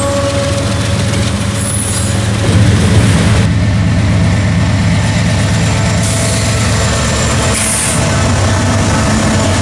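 Diesel freight locomotives passing at close range, their engines running with a deep, steady rumble. After a change about two and a half seconds in, the lead unit is a Norfolk Southern GE AC44C6M.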